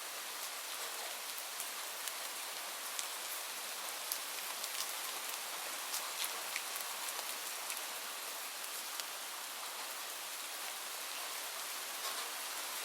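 Light rain falling steadily: an even hiss with scattered sharp patters of individual drops.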